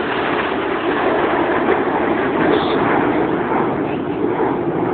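Jet noise of the Red Arrows' BAE Hawk T1 formation flying past, a dense roar that swells to its loudest about halfway through and then eases off.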